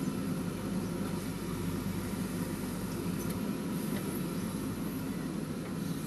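JCB 3DX backhoe loader's diesel engine running steadily while the backhoe arm moves.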